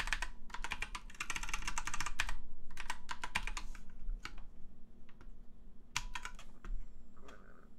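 Typing on a computer keyboard: a quick run of keystrokes in the first couple of seconds, then a few scattered single key presses.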